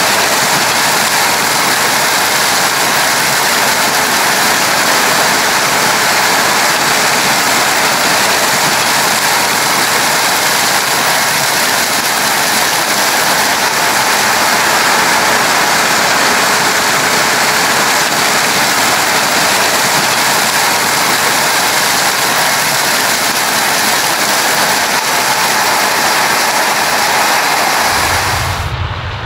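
Combine harvester at work in corn, heard as a loud, steady, even rushing noise like pouring grain or crop flow, with little engine hum underneath. Near the end the rushing drops away and a low hum takes over.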